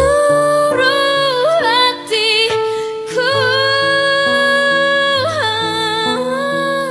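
A woman singing a slow ballad melody in long held notes with vibrato, over plucked acoustic guitar chords. The longest note is held for about two seconds in the middle, and the line then steps down to a lower note near the end.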